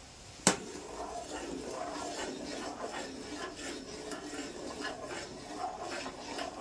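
A metal spoon stirring and scraping in a metal pot of boiling water as semolina for upma is poured in: a run of quick small clinks and scrapes of metal on metal, after one sharp clink about half a second in.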